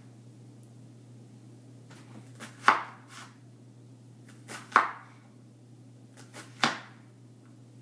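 Chef's knife chopping down through an onion onto a wooden cutting board while dicing it: three sharp strikes about two seconds apart, each preceded by a few light taps.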